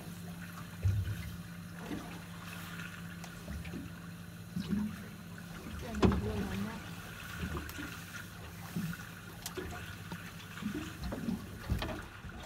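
Water lapping around a small boat, over a steady low hum, with a few knocks; the loudest knock comes about six seconds in.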